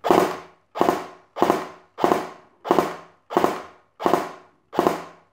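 Ares/Star SA80 airsoft electric gun firing single shots, eight in a row at about one and a half a second, each sudden with a short fading tail. Run on a LiPo battery, the motor's torque tends to make it fire a double shot on one trigger pull.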